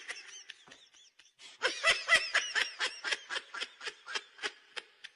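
High-pitched laughter in a fast run of short bursts, about four or five a second, starting about a second and a half in and lasting about three seconds.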